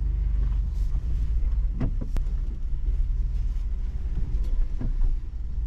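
Ford Bronco Badlands engine running with a steady low rumble as the SUV crawls slowly over a rocky trail, with a few brief knocks from the tyres and suspension on rock.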